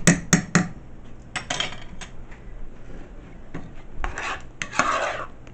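Kitchen utensils and cookware handled: a quick run of clinks in the first moment, then a few short scraping and rubbing sounds of metal against pots and dishes.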